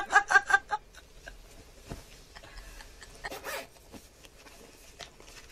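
Two women laughing together in short, pulsing bursts for about the first second. Then soft rustling and small clicks, with a short louder rustle about three and a half seconds in.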